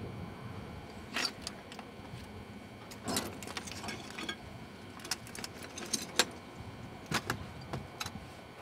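Irregular clinks and crunches of footsteps on broken brick and roof-tile rubble, a dozen or so sharp knocks at uneven intervals over a low steady rumble.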